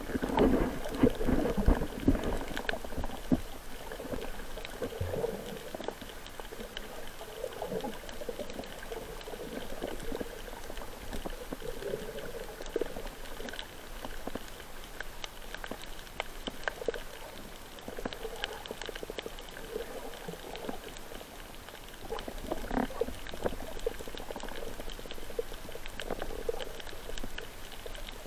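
Underwater water noise: muffled sloshing and bubbling of water moving around the camera, louder for the first two seconds and then swelling and fading unevenly, with a scatter of faint clicks throughout.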